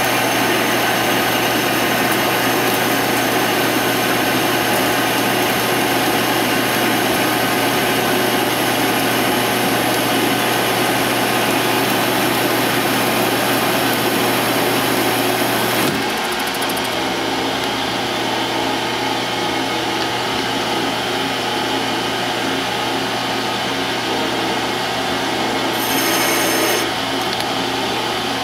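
Metal lathe turning a steel DOM tube with an insert tool: the steady hum of the lathe running, with the hiss of the cut on top. About 16 seconds in the sound drops a little and the lathe runs on.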